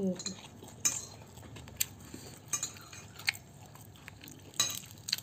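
Fingers pulling apart fried catfish on a ceramic plate, with scattered sharp clicks and taps against the plate roughly once a second.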